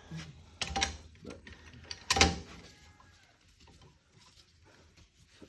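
Metal clicks and clanks from a wrench tightening the nut on a homemade threaded-rod axle puller that is drawing an axle shaft out of its housing. A few knocks come in the first couple of seconds, the loudest about two seconds in, then it goes quiet.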